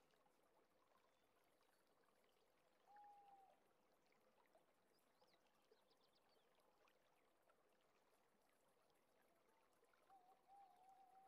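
Near silence: room tone, with a faint short tone about three seconds in and a faint wavering tone near the end.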